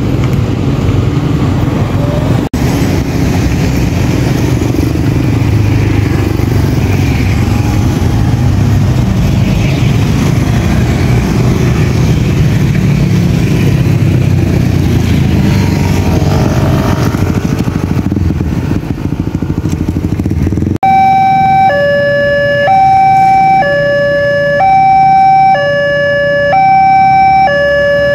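Road traffic running past a railway level crossing. About 21 seconds in, the crossing's electronic warning siren starts, alternating steadily between a higher and a lower tone about once a second.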